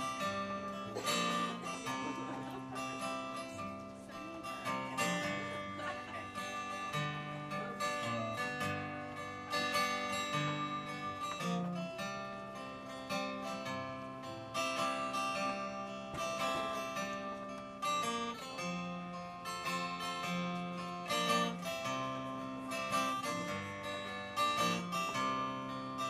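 Instrumental break in a slow country ballad: acoustic guitar playing chords, with a melody line of held notes over them and no singing.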